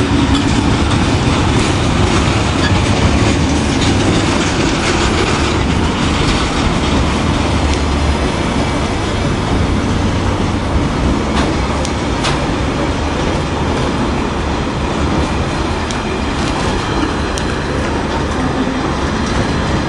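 Freight wagons loaded with concrete sleepers rolling past at close range: a steady rumble of wheels on the rails, with a few scattered clicks.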